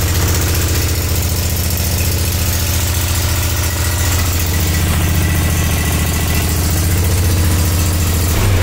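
Kawasaki FR691V V-twin engine on a Dixie Chopper zero-turn mower idling steadily, freshly started.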